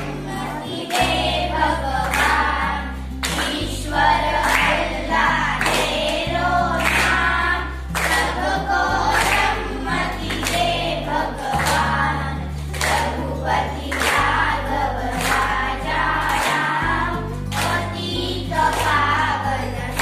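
A group of girls singing a song together in unison, clapping their hands in time, about two claps a second.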